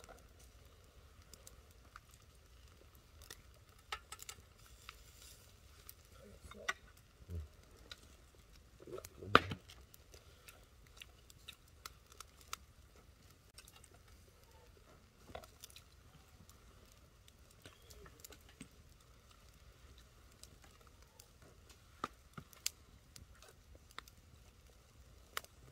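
Quiet eating sounds: scattered light clicks and ticks of chopsticks and tableware, soft tearing and chewing as grilled fish is picked apart, with one louder knock about nine seconds in.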